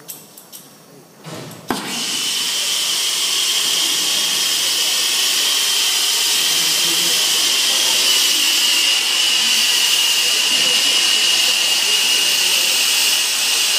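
Plumber's soldering torch for sweating copper pipe: a few clicks, then it catches with a pop a little under two seconds in and burns with a steady, loud hiss and a high whistling tone.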